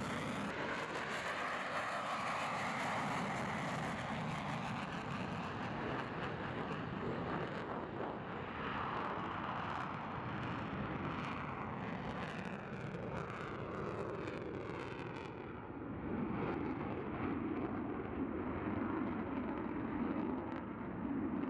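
F-22 Raptor's twin turbofan jet engines rumbling steadily as the fighter passes and climbs away, with a slowly shifting, phasing tone; the hiss thins out after a few seconds and a deeper rumble swells near the end.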